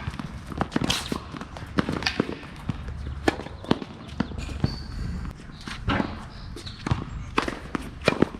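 Tennis being played: irregular sharp knocks of rackets striking the ball and the ball bouncing on court, mixed with footsteps.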